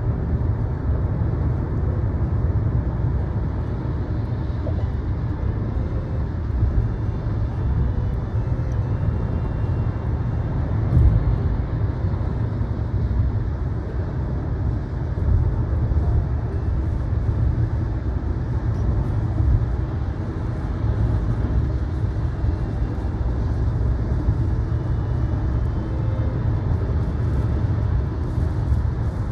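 Steady low rumble of a car driving, its road and engine noise.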